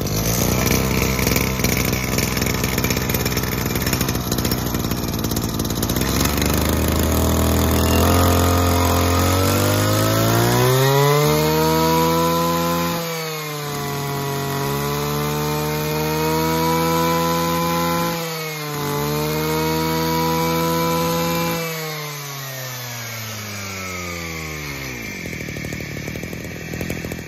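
Robin NB251 brush cutter's small two-stroke engine idling, then throttled up to high revs and held there, with two brief dips in revs, before it is let back down to idle near the end.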